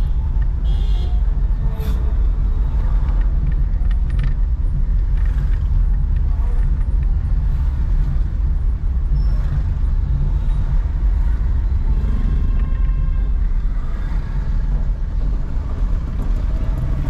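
A car driving on city streets: a steady low rumble of engine and road noise.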